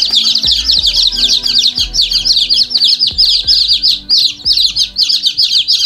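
Many chicks peeping at once: a continuous chorus of rapid, high, downward-falling chirps that overlap one another, over a low steady hum.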